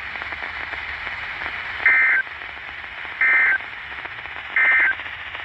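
Emergency Alert System end-of-message data burst on NOAA Weather Radio: three short two-tone digital screeches about a second and a half apart, marking the end of the warning. Steady receiver hiss runs underneath.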